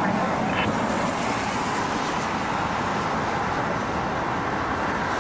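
Steady, even roar with no distinct tones: the din of an airfield, with a taxiing Airbus A380's jet engines blended with traffic noise.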